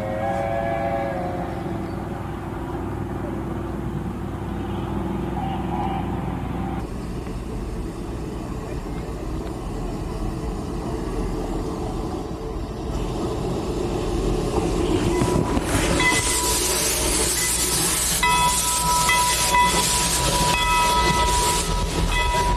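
1909 H.K. Porter 2-6-0 narrow gauge steam locomotive running toward the listener, growing louder. About fifteen seconds in, a loud hiss of venting steam starts, and high steady tones sound over it near the end.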